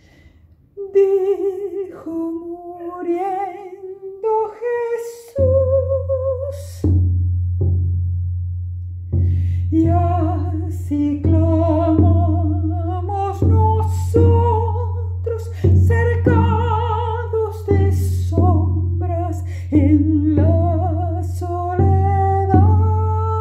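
A solo voice sings a slow baguala, an Argentine folk song, in Spanish with a wide vibrato. From about five seconds in, a low drum beats under it at a steady pace.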